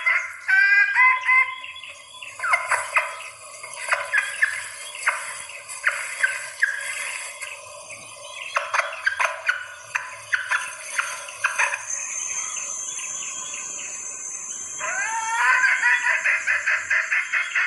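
Junglefowl hen giving strings of short clucking calls, with a few rising notes, then a fast even run of clucks near the end. It is the call of a hen in breeding condition calling to males, used as a lure. A thin high steady note runs in the background for a few seconds past the middle.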